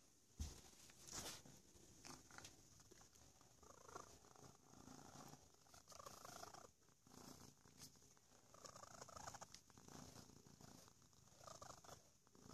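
Domestic cat purring close to the microphone, the purr swelling and fading every second or two with its breathing, while a bristle brush strokes through its fur. A soft bump is heard near the start.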